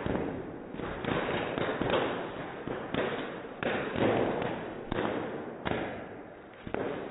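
Bubble wrap popping under dancing feet: a rapid, irregular crackle of many sharp pops, thinning out briefly near the end.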